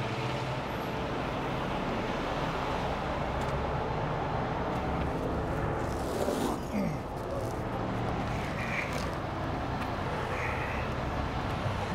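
Heavy tow truck engine idling steadily under freeway traffic noise; a passing vehicle's pitch drops about six seconds in.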